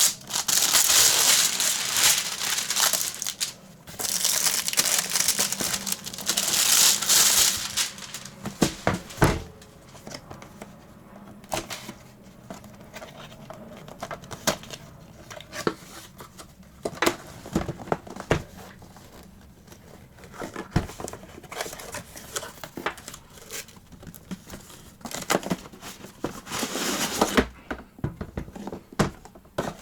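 Packaging being torn open and crinkled while a power-tool box is unpacked: three long stretches of rustling and tearing, with scattered knocks and clicks in between.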